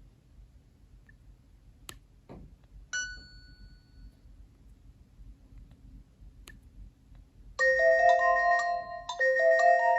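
Nokia 7710 ringtone playing through the phone's speaker: a bright, bell-like melodic phrase starts about three-quarters of the way in and repeats about a second and a half later. Before it, a few faint clicks and a short single chime about three seconds in.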